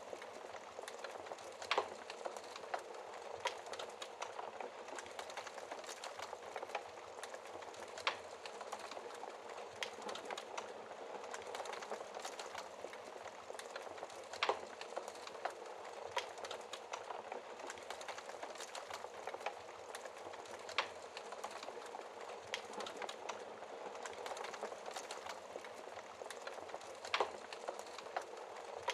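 Wood fire burning in a fireplace: a steady crackling hiss with many small snaps and a sharp, louder pop every several seconds.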